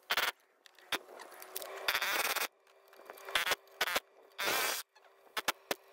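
Pneumatic air chisel hammering in short bursts against a seized diesel fuel injector to work it free, fired about seven times, the longest burst about half a second. A steady faint hum runs underneath.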